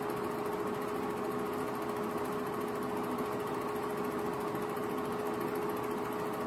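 8mm film projector running: a steady mechanical whir and chatter from its motor and film-advance mechanism, with a steady hum under it.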